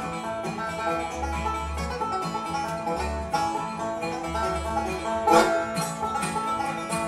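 Bluegrass instrumental played on banjo and upright bass: fast picked banjo notes over deep plucked bass notes, with a louder accent about five seconds in.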